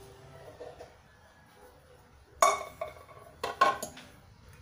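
Metal kitchenware clanking: a few sharp knocks that ring, one about halfway through and a quick cluster a second later. At the start, the tail of broth being poured into a stainless-steel pot fades out.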